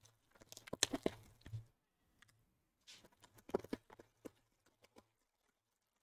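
Clear plastic shrink wrap being torn and peeled off a sealed trading-card box, crinkling in two short spells of crackles.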